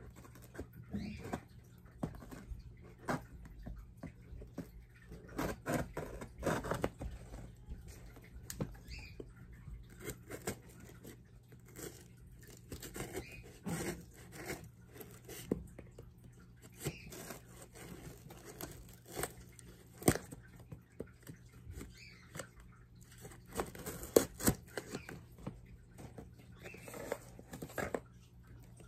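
A folding knife slitting packing tape and scraping across the top of a cardboard box: irregular scratches and scrapes with a few sharper clicks.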